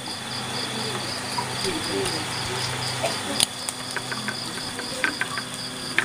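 Crickets chirping in a quick, even pulse, with a steady high trill beneath. A few sharp clicks, the loudest about halfway through.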